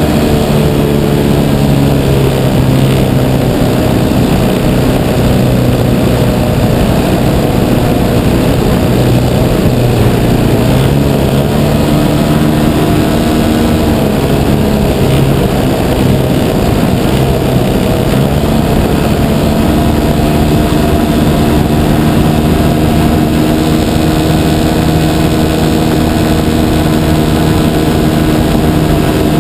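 3W 275cc gasoline engine and propeller of a 60% scale RC Piper Cub running in flight, heard from a camera mounted on the plane, with a steady rush of wind. The engine note holds steady but shifts in pitch a few times, once near the middle and again about two-thirds through, as the throttle changes.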